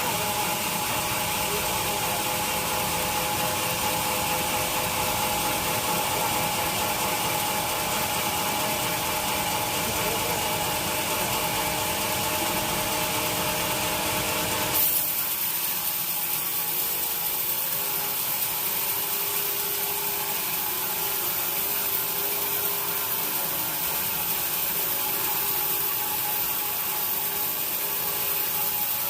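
Sawmill saw cutting through teak wood, a steady whine over a grinding hiss. About halfway through the sound changes abruptly to a higher, thinner hiss with less low rumble.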